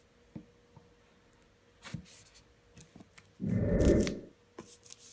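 Knife slitting the plastic shrink-wrap on a cardboard tablet box, a few light scrapes and taps, then a loud crinkling rustle as the film is pulled away, lasting under a second, about three and a half seconds in.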